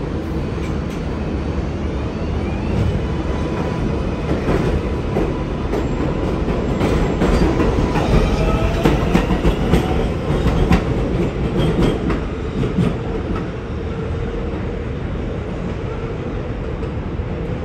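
Kawasaki R188 subway train pulling out of an elevated station: the motor whine rises in pitch as it speeds up, and the wheels clack over rail joints with short squeals. It is loudest about halfway through, then eases to a steady rumble.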